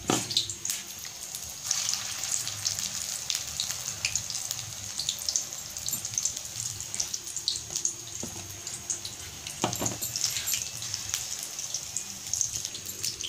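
Battered paneer pakoras deep-frying in hot oil in a kadai: a steady sizzle with many small crackling pops.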